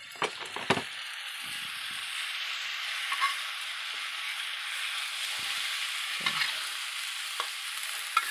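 Tempe with sweet soy sauce sizzling steadily in a hot frying pan, the hiss picking up after about a second, while a metal spatula stirs it with a few sharp clicks and scrapes against the pan.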